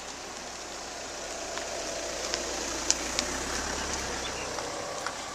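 Many runners' footsteps pattering on wet asphalt: a steady shuffling hiss that grows louder through the middle as the pack comes near, with a few sharper single footfalls.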